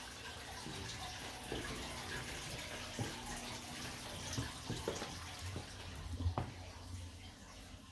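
Steady faint trickle and hiss of water from an aquarium filter, with soft thumps of footsteps scattered through, two close together about six seconds in.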